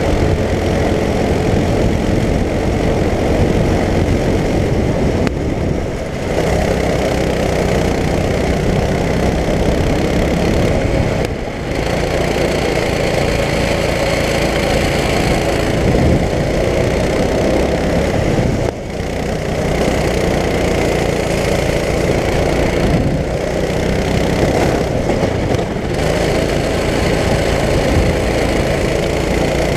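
Racing kart engine heard from on board, running loud and hard at high revs, with air rushing over the kart. The engine note dips briefly about five times as the throttle is lifted for the bends.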